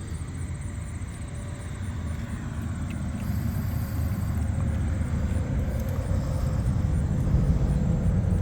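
A low, steady rumble that grows gradually louder.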